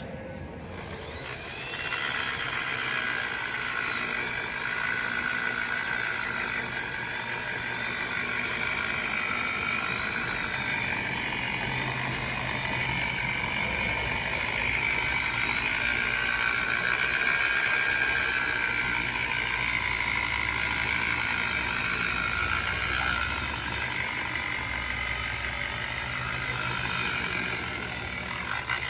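Simoniz electric polisher running, buffing cleaner-wax into a boat hull: a steady motor whine that comes up to speed about two seconds in, its pitch wavering slightly as the pad is worked over the surface.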